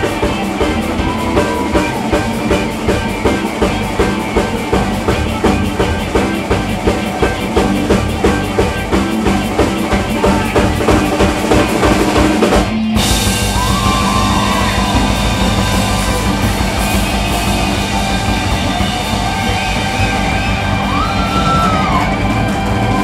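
Live alt-country rock band with drums, bass and guitars playing an instrumental passage to a steady driving beat; about halfway through the beat gives way to a held, ringing wall of sound with sliding guitar notes over it.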